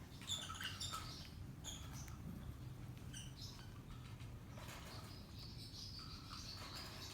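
Parrot chicks squeaking: a scatter of short, high peeps in the first few seconds, then one thin, drawn-out squeak near the end.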